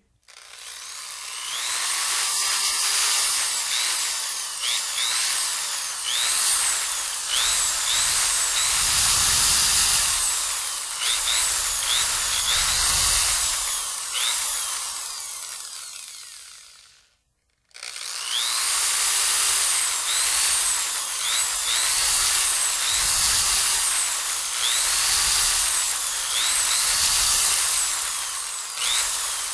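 Loud, steady rushing and grinding noise with repeated short swooping chirps over it. It cuts out completely for about a second, roughly two-thirds of the way through, then resumes.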